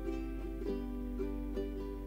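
Background music: a light plucked-string tune, notes starting about every half second.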